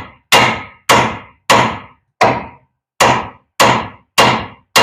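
Steel hammer striking a rusted, seized outer tie rod end on a 2006 Chevy Colorado's steering, about two blows a second, each with a short metallic ring; the part is stuck fast and not coming free.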